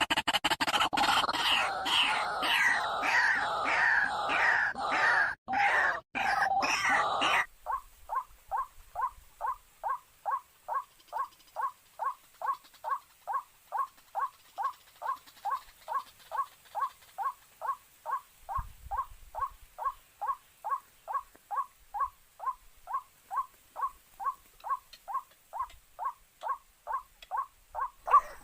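Background music for about the first seven seconds, cutting off abruptly. After that, a bird's short call repeated evenly, about two and a half times a second.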